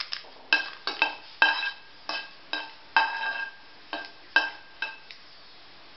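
A slotted metal spoon stirring and scraping in a metal kadai, giving a quick run of ringing clinks against the pan, as mustard seeds and dried red chillies are moved about in the oil. The strokes stop about five seconds in.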